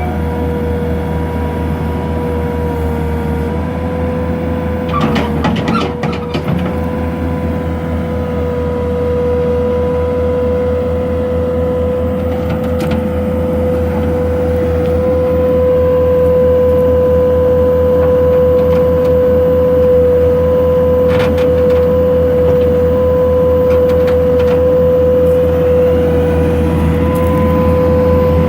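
Takeuchi TL140 compact tracked loader running, its diesel engine a steady drone under a steady high whine. There are a few clanks about five seconds in and again past the twenty-second mark, and the machine gets louder about halfway through.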